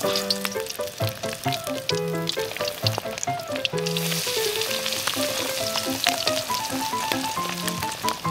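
Breaded fish frying in hot oil in a wok, sizzling steadily and growing louder about four seconds in, with background music playing over it.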